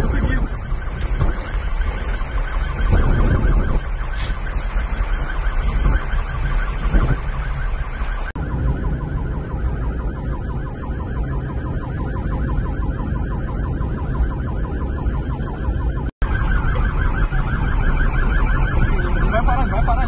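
Police siren sounding with a fast warble, heard from inside a moving car over loud engine and road rumble. The sound changes abruptly at edits about 8 and 16 seconds in, with a brief dropout at the second.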